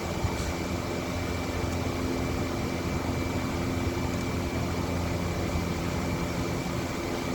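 Steady running machinery: an even hum and hiss with a constant high-pitched whine over it.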